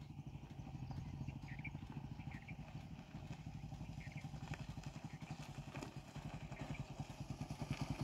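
An engine idling with a steady, rapid, even pulse, fairly faint.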